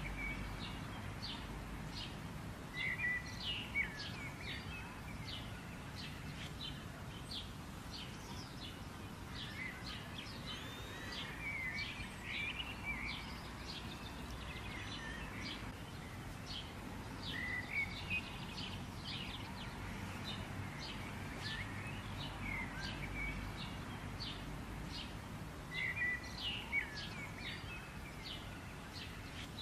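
Small birds chirping outdoors: short high chirps, several a second, with louder warbled phrases a few seconds in, around the middle and near the end, over a steady low hum.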